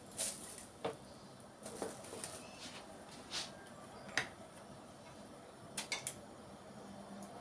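Light clicks and taps of plastic kitchen containers being handled: a yogurt tub's lid closed and a plastic squeeze bottle of mayonnaise opened and squeezed into a bowl. The clicks are scattered and come about a second apart, with a close pair near the end.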